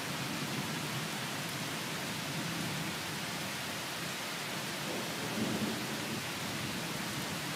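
Steady hiss of rain in a thunderstorm, with a faint swell of rumbling thunder about five seconds in.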